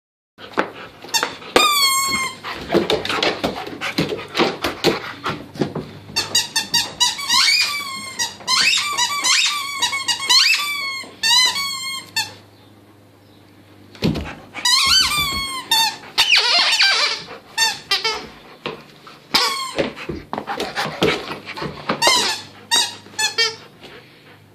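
Squeaker in a plush alligator toy squeaking in rapid runs as a golden retriever chomps on it and tugs at it, each squeak bending up and down in pitch. The squeaking breaks off for about a second and a half midway, then starts again.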